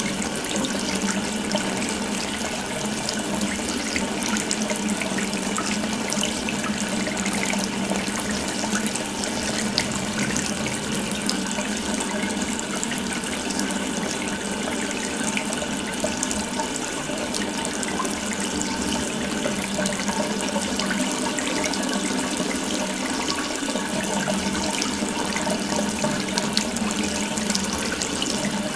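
Water running steadily from an open tap, a continuous rushing splash.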